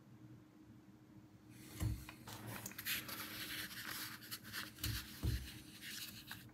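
Rustling and rubbing of coin packaging being handled, starting about a second and a half in, with three soft knocks as the plastic coin capsule and its presentation box are moved about.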